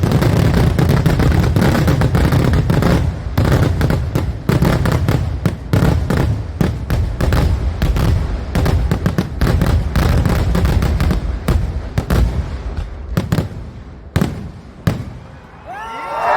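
Fireworks display: a loud, continuous barrage of rapid firecracker bangs and crackles, thinning to scattered separate bangs in the last few seconds.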